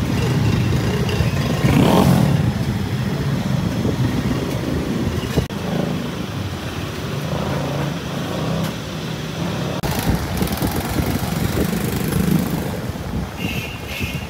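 Roadside traffic: motorcycles and cars running and passing in a steady din, loudest about two seconds in.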